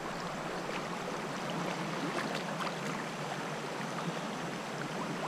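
Shallow Chattahoochee River water rushing over rocks in a riffle, a steady babble close to the surface with a few small splashes.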